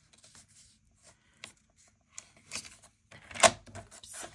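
Cardstock being slid and lined up on a paper trimmer: soft scrapes and rustles with pauses between them, and one louder brief knock or click about three and a half seconds in.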